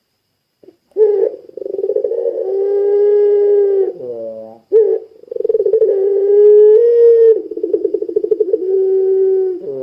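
Puter pelung, a domestic collared dove bred for its long voice, cooing: starting about a second in, several long drawn-out coos, each held steady for one to two seconds with a fast flutter, broken by short falling notes.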